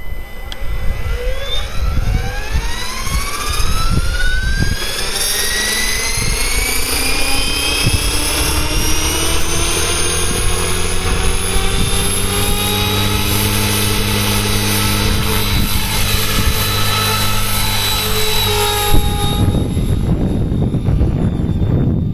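Compass Atom 500 electric RC helicopter spooling up: the whine of its Kontronik brushless motor and gears rises in pitch over about ten seconds as the rotor comes up to speed, then holds steady. Near the end the whine gives way to rotor rush and wind as it lifts off and climbs away.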